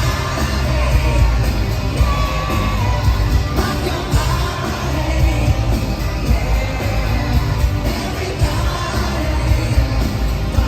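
Loud live pop-rock concert music with singing over a heavy bass beat, crowd noise mixed in.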